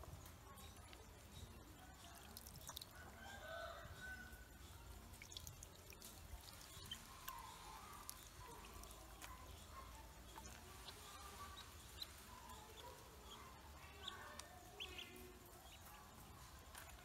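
Faint, scattered peeping of ducklings, with small drips and splashes of water as they paddle in a shallow plastic basin.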